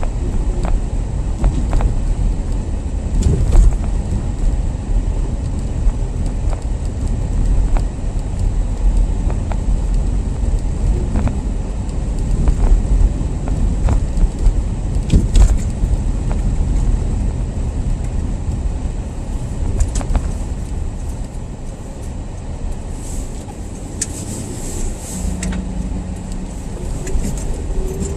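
Car driving on snow-covered roads: a steady low rumble of engine and tyre noise, with scattered light clicks and knocks.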